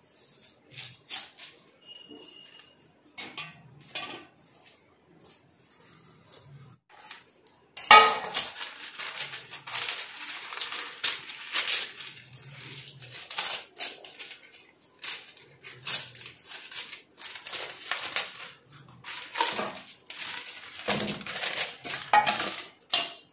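A knife point scratching and tapping as it cuts butter paper around a metal cake tin, in sparse light clicks. About eight seconds in, a sudden loud start of dense crackling and rustling as butter paper is pulled off its roll and handled.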